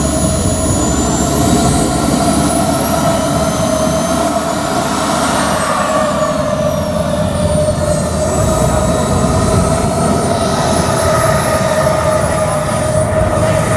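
Model jet turbine of a scale RC F-5 Tiger running on the ground: a steady loud rush under a high turbine whine that rises and falls in pitch.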